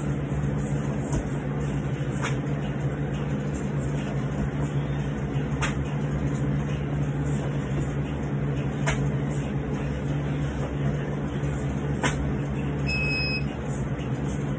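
Burpees performed over a steady machine hum: a thud with each rep, about one every three seconds. A short electronic beep sounds near the end.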